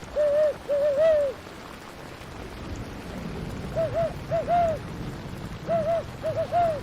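An owl hooting in three quick runs of three or four notes over the steady hiss of rain, with a low rumble in the middle.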